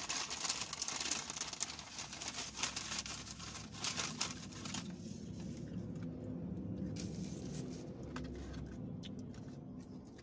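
Paper fast-food packaging crinkling and rustling as it is handled, busy for about the first five seconds and then dying down.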